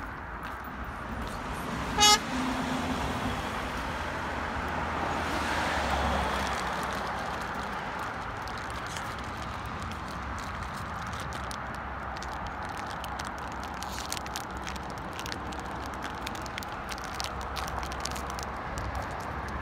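A vehicle horn gives one short toot about two seconds in, then a vehicle passes, its noise rising and fading, over steady roadside traffic noise.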